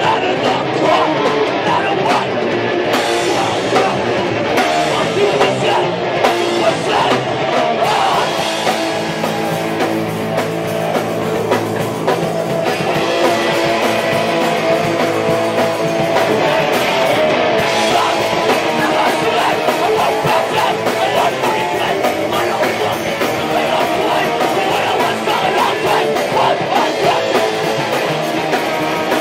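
Live rock band playing loudly without a break: electric guitar and drum kit with a singer.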